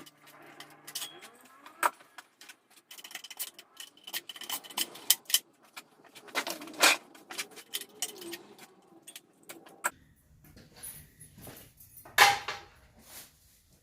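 Metal clicks and clinks from hand tools and small screws and terminals while the wiring is being taken off an electric water heater's thermostat and heating element. The loudest knock comes near the end.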